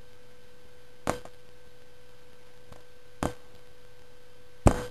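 A steady faint electrical tone in the recording, with three short sharp knocks: about a second in, a little past three seconds, and a louder one near the end.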